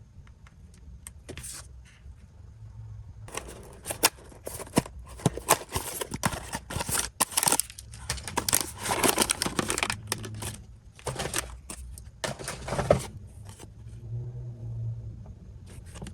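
Blind-box toy packaging being handled and opened: crinkling and rustling with sharp plastic clicks. It is busy in the middle and sparse at the start and end.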